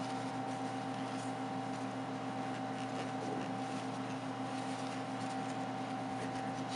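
Steady background hum made of several steady tones, with faint soft rubbing and light ticks as a microfiber cloth wipes a smartphone's screen and edges.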